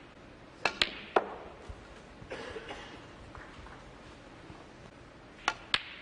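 Snooker balls clicking: the cue tip striking the cue ball and balls knocking together. There are three sharp clicks about a second in and two more near the end.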